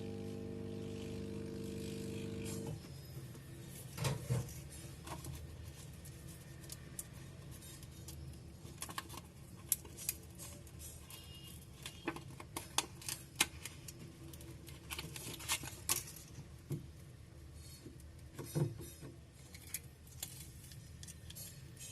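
A steady hum that cuts off about three seconds in, followed by scattered light clicks and taps of small repair tools working on a phone's display assembly.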